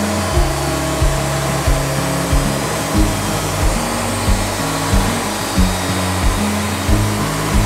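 Background music with a steady beat and a bass line, laid over the steady noise of a Wood-Mizer band sawmill running as it cuts a log.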